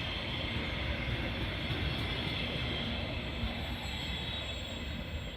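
Freight train of barley-laden hopper wagons rolling by, a steady rumble of wheels on rail with a faint high whine.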